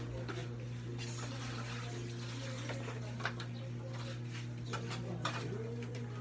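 Dishes being washed by hand in a plastic basin: water sloshing and splashing, with a few short clinks of dishes. A steady low hum runs underneath.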